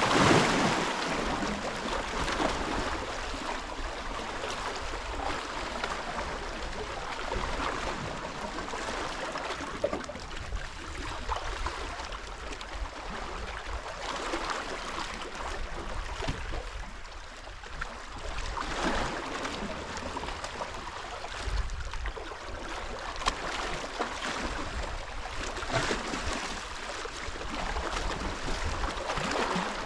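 Steady outdoor rushing noise of wind on the microphone and water, with scattered faint knocks and rustles of handling.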